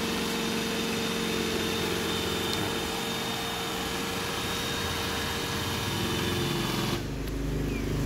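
iRobot Roomba e5 robot vacuum running as it drives itself back onto its charging dock, a steady whir with a hum. It cuts off suddenly about seven seconds in as the robot docks.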